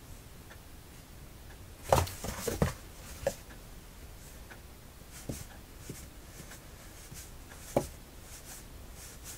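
Cats bumping and shifting against a cardboard box: a short burst of knocks and scraping on the cardboard about two seconds in, then a few single knocks a couple of seconds apart, one sharp one near the end.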